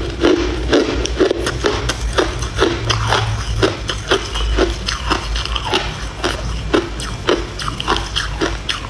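Close-up chewing of a frozen ice block. Teeth crunch through hard ice in a steady run of sharp cracks, several a second.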